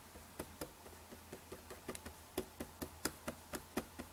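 Computer keyboard arrow keys pressed over and over, a steady run of light clicks about four or five a second that grows a little louder about halfway through, scrolling a web page up and down.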